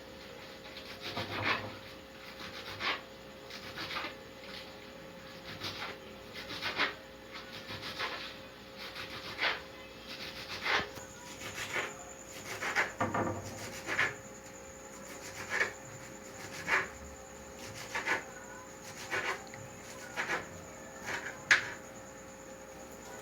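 Knife slicing lettuce leaves on a cutting board: short rasping cuts, roughly one stroke a second.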